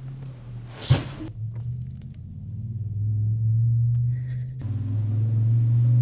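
Low droning rumble of a horror-film score, opened by a sudden sharp hit about a second in; the drone swells twice while the higher sounds drop out.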